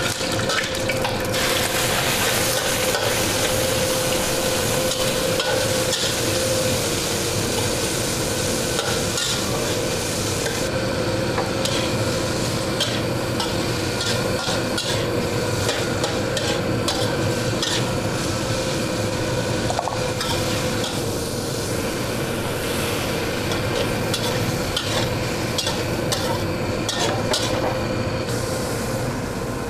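Garlic and squid pieces sizzling steadily in hot oil in a steel wok as they are stir-fried. From about a third of the way in, a metal spatula scrapes and clicks against the wok again and again.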